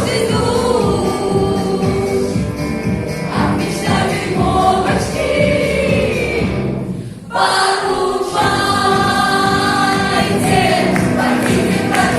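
Background music with a choir singing, which breaks off briefly about seven seconds in and starts again.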